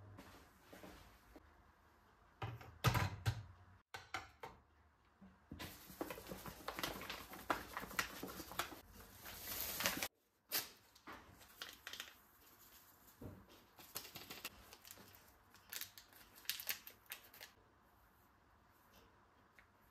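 Small hand-handling sounds: quick taps, clicks and rustling, as of kitchen utensils and packaging being handled, with two abrupt cuts.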